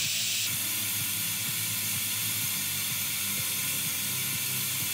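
SEB pressure cooker's valve venting steam in a loud, steady hiss as the pressure is let out before the lid is opened. The hiss eases right at the end.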